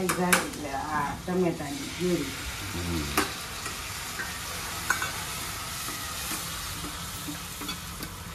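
A masala frying in oil in a stainless steel kadai, sizzling steadily while it is stirred with a steel ladle that clicks against the pan now and then. A person's voice is heard over the first few seconds.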